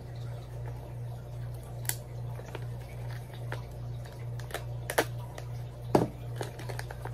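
Small plastic parts bag handled and cut open: light crinkling with a few sharp clicks and snips, the loudest near the end, over a steady low hum.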